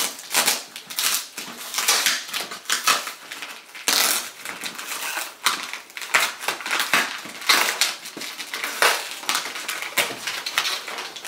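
Clear plastic packing-list envelope being peeled off a cardboard shipping box, its adhesive tearing away and the plastic crinkling in a quick, uneven run of sharp rustles.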